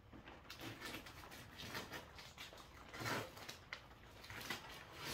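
Blue painter's tape being peeled off a router jig, a series of short, irregular rasping pulls, the loudest about three seconds in.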